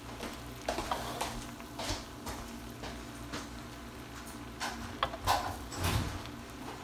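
Spatula stirring and scraping fried rice in a wok: irregular scrapes and taps, roughly one every half second, over a steady low hum.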